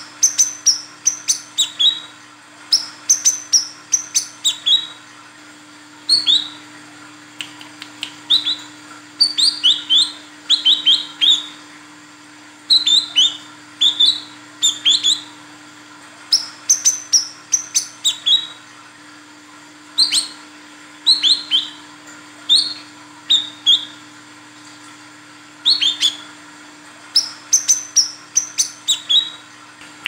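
Female brown-throated sunbird (kolibri kelapa) calling in quick runs of sharp, high, falling chirps, three to six at a time with short pauses between runs, the female's call to males.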